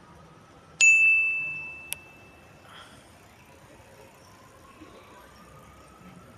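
A subscribe-button sound effect: a sudden bright bell ding about a second in, held for about a second, then a sharp click as it dies away. It sounds over faint street background noise.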